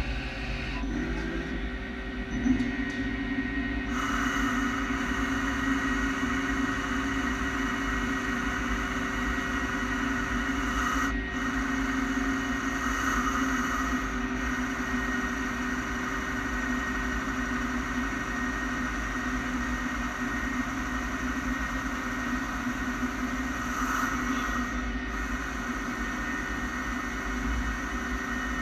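Samsung SL15 CNC lathe turning a metal workpiece: the spindle and cut run with a steady hum and whine, growing fuller about four seconds in and swelling slightly now and then.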